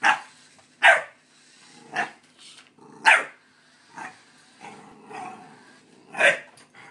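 Pit bull puppy barking at a light-up remote-control toy car: about six sharp barks at uneven intervals, with softer barks between them.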